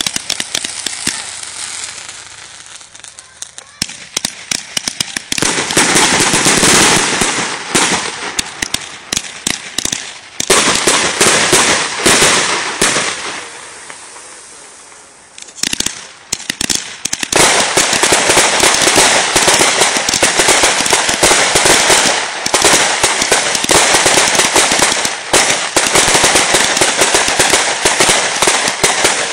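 1.4G consumer fireworks going off: dense, rapid crackling and popping of bursting stars, loud, with two brief lulls, a few seconds in and about halfway through.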